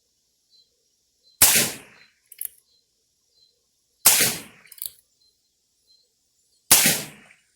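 Three single shots from a Heritage .22 handgun firing CCI Quiet low-powder .22 rounds, about two and a half seconds apart, each a sharp crack with a short tail. A short, faint click follows about a second after each shot.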